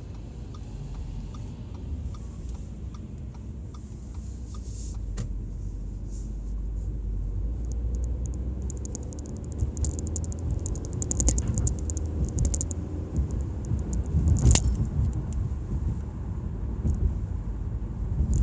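Audi A4 accelerating, heard from inside the car: a low engine and road rumble that grows louder, with a rising pitch partway through. Around the middle comes a run of quick light rattling clicks, then a single sharp click; this is the noise the owner hears when accelerating.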